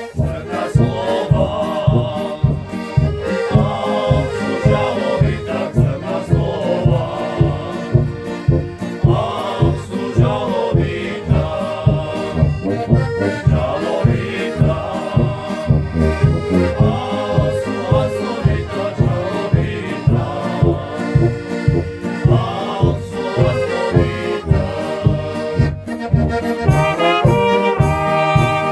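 Traditional brass-band tune with accordion carrying the melody over a steady oom-pah bass beat, about two beats a second. The trumpets and horns come back in strongly near the end.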